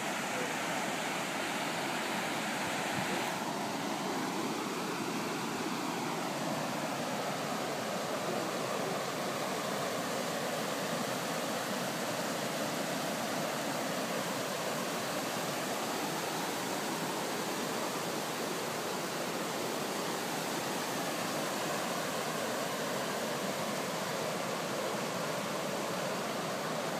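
Floodwater rushing steadily, pouring in a churning sheet over the edge of a flooded road into a flooded field.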